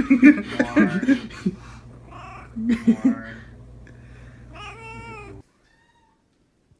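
Domestic cat yowling in low, drawn-out calls twice, then giving a higher meow about five seconds in, after which the sound cuts off suddenly.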